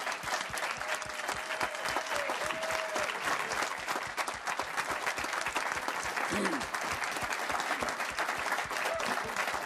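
Applause: a room of people clapping steadily.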